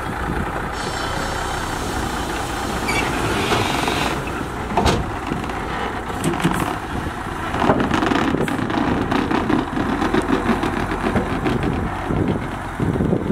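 Daewoo Novus dump truck's diesel engine running while its raised bed tips out a load of dirt, then the truck pulling away, with scattered knocks and a run of quick rattles from about eight seconds in.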